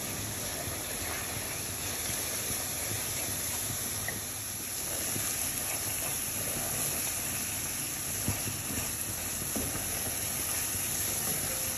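Onions and ground spices frying in oil in an aluminium pot, a steady sizzle, while a wooden spoon stirs through them with a few faint scrapes.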